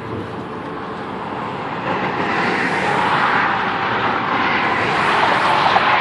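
Highway traffic crossing a bridge: a steady rush of passing vehicles and tyre noise that grows louder after about two seconds.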